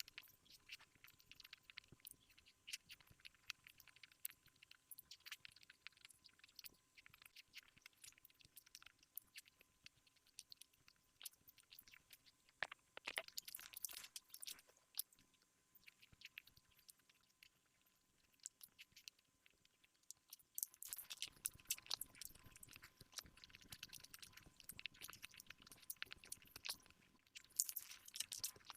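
Faint close-miked chewing of cake: soft, wet mouth clicks and smacks that grow busier about 13 seconds in and again through the last third.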